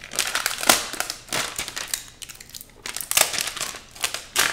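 Clear plastic film crinkling and crackling irregularly as it is peeled off a tablet by hand.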